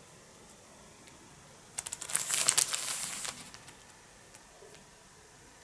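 Paper leaflet rustling and crinkling as it is handled, one burst of about a second and a half in the middle.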